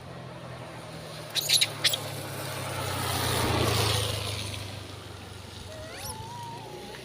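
A vehicle passes on the road, its noise swelling and fading over a steady low engine hum. A few short, high squeals come about a second and a half in, and a single gliding call comes near the end.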